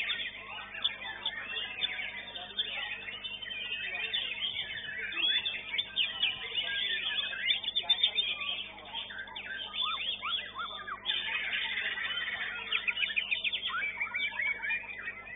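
White-rumped shamas (murai batu) singing in contest: a dense, unbroken tangle of quick whistles, trills and chirps from several birds at once.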